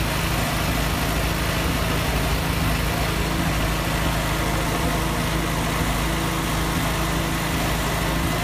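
An engine idling steadily, an even hum that does not change.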